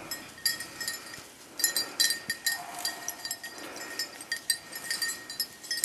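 Small bell on a beagle's collar jingling in short, irregular shakes as the dog trots.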